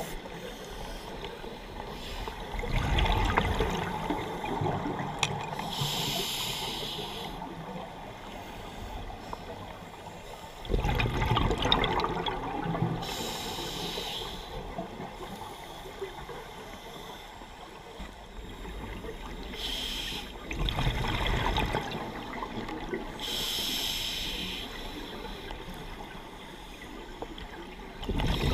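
Scuba diver breathing through a regulator underwater: a hissing inhale, then a louder burst of bubbling exhaled bubbles, repeating every several seconds, about four breaths in all.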